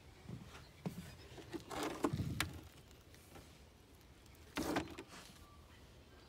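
Thin plastic sheet rubbed and flexed by hand against a wooden frame, giving a few short rustling, rubbing sounds. The loudest comes about two seconds in and a shorter one near five seconds.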